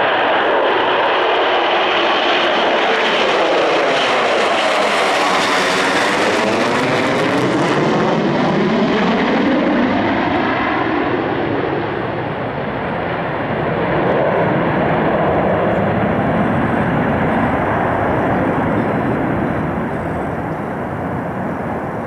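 Tupolev Tu-160 bomber's four NK-32 turbofans running at full takeoff power as it climbs out low overhead: a loud, continuous jet noise with a sweeping, phasing whoosh as it passes over a few seconds in. The hiss then fades after about eight seconds as it flies away, leaving a deeper rumble.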